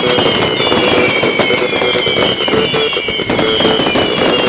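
Fireworks going off in rapid succession: a dense, continuous crackle of many small bangs, with thin whistles that slowly fall in pitch.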